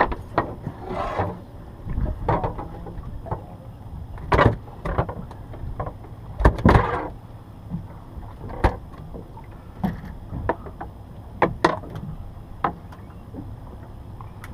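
Irregular knocks and taps on a small fishing boat, the loudest about four and a half and almost seven seconds in, over a steady low hum.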